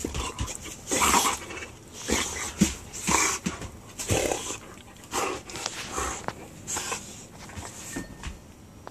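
Two boxer dogs play-fighting at close range, making short noisy breath sounds and mouthing noises in irregular bursts about once a second, which die down near the end.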